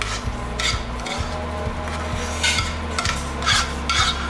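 Spoon scraping thick lentil dahl out of a frying pan onto a plate: several short scrapes and clinks of the spoon against the pan, over background music.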